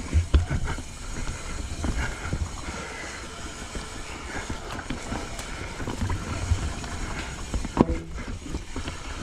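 Knolly mountain bike rolling fast down dirt singletrack: tyres rumbling over dirt and roots, with the frame and parts rattling and knocking over bumps. A sharp knock comes near the end.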